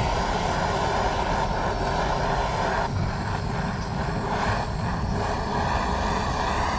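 Blowtorch flame burning with a steady rushing hiss while it scorches the wooden frame of a queen excluder.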